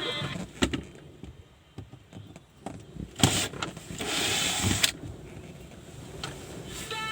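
Hand work on a car's rear interior trim: scattered clicks and knocks, a short rasp a little after three seconds, then about a second of scraping or whirring noise.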